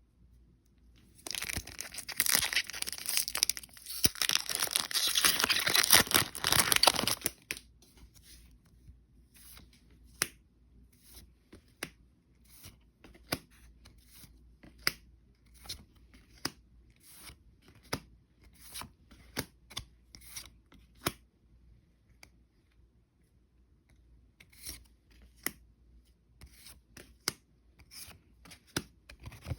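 Foil wrapper of a Pokémon TCG booster pack being torn open, crackling densely for about six seconds. Then a long run of short, sharp card snaps, roughly one a second, as the cards are flipped through one by one.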